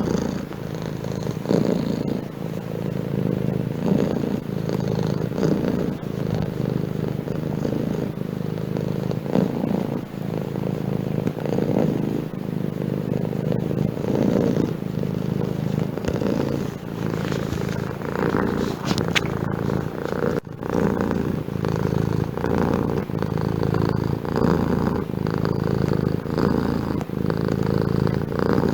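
Domestic cat purring loudly and continuously, the purr swelling and easing every second or two.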